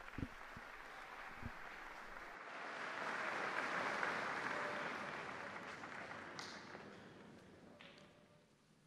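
Audience applauding: the clapping swells about two seconds in, then gradually dies away near the end.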